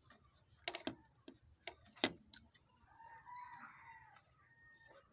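A few sharp clicks and smacks from eating by hand in the first two seconds, then a rooster crowing once in the background, about three seconds in, lasting just over a second.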